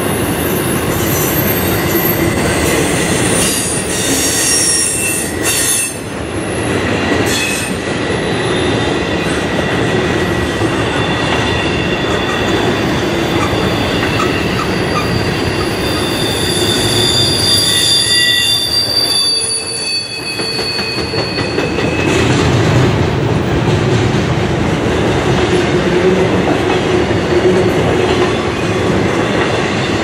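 Intermodal freight train of flatcars loaded with highway trailers rolling past: a steady rumble of steel wheels on rail, with high-pitched wheel squeal that comes and goes.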